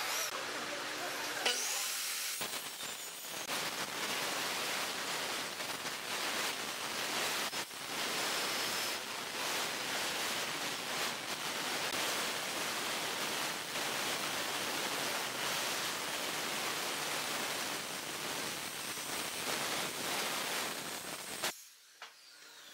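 Handheld circular saw cutting steadily along the edge of a thick wooden tabletop, guided by a clamped straightedge, for nearly twenty seconds. The saw stops shortly before the end.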